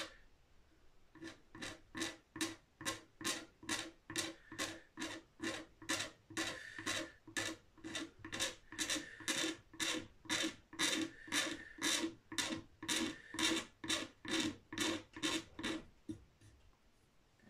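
Blade scraping the finish on a guitar headstock in short, even strokes, about two to three a second, shaving the finish down level over a headstock repair. The scraping stops near the end.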